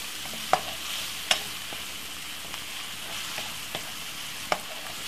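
Chopped vegetables sizzling in a frying pan over medium heat, a steady hiss broken by a few sharp clicks and smaller ticks.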